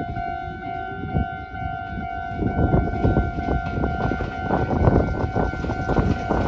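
Japanese level-crossing warning bell ringing steadily at about two dings a second. A Meitetsu electric train comes through: its wheels start clattering over the rail joints about two and a half seconds in and get louder.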